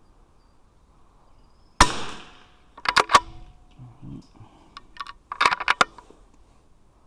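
A single .22 rimfire rifle shot, then a series of short metallic clicks as the bolt is worked to eject the case, a fresh round is loaded by hand and the bolt is closed again.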